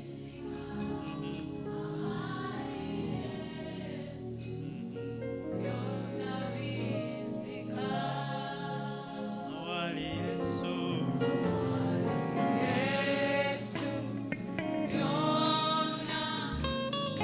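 Gospel worship song: a group of voices singing over sustained instrumental chords, growing louder in the second half.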